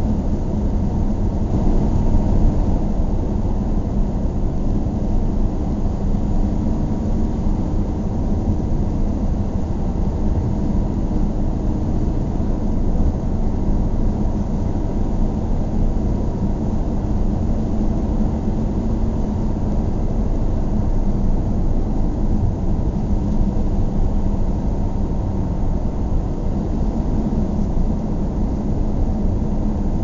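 A car driving at a steady pace: an even, low rumble of engine and tyre noise that holds steady throughout.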